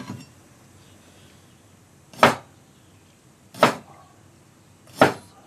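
Chinese cleaver chopping ginger root on a wooden cutting board: a light knock at the start, then three sharp chops about a second and a half apart.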